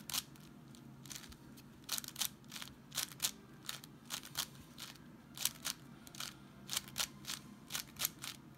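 Plastic 6x6 puzzle cube's layers being turned by hand: a string of quick, irregular clicks and clacks as the slices snap round while an edge-parity algorithm is run, over a faint low hum.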